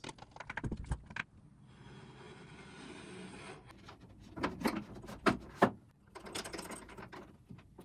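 A plywood table-saw extension being handled and fitted onto the saw's aluminium rail. There is a quick run of light clicks at first, then three sharp wooden knocks and clunks about halfway through, and light clicking near the end.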